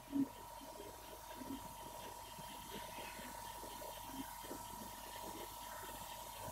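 Faint room tone: a low steady hiss with a thin steady hum through it. A short soft sound comes just after the start.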